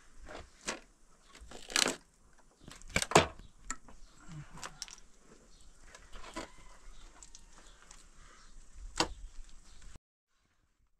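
Scattered knocks and clatters at irregular intervals, the loudest two about two and three seconds in, then the sound cuts out completely for the last second.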